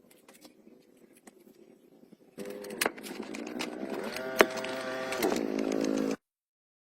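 Faint scattered ticks, then a motor running with a steady pitched hum that rises slightly in pitch and falls back, with a few sharp clicks, before cutting off abruptly.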